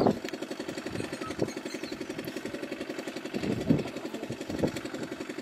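An engine idling with a steady, fast pulse. A few brief louder sounds come about three and a half seconds in and again a second later.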